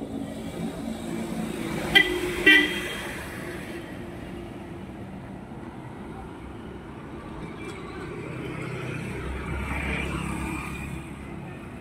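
Two short vehicle horn toots about half a second apart, about two seconds in, over steady street traffic noise. A vehicle goes by later with a low rumble that swells and fades.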